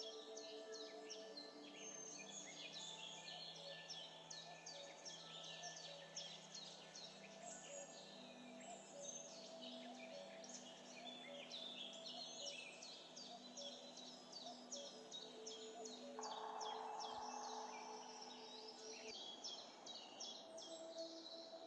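Quiet background music of soft held notes, with many short bird chirps over it.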